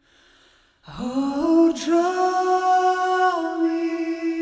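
Gospel vocal music: after a brief hush, voices swoop up into a long held note about a second in, sustained and then stepping to a new pitch near the end.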